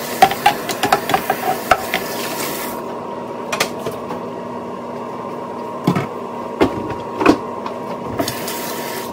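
Kitchen clatter: rapid clinks and knocks of dishes or utensils over a hiss that cuts off about three seconds in, then a few scattered knocks over a steady hum.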